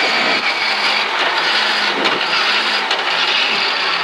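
Rally car's engine running at a steady pitch, heard from inside the cabin under a loud, even rush of road and tyre noise.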